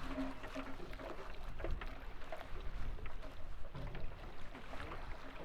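Small fishing boat on the water: a steady low rumble with scattered light knocks and clatter.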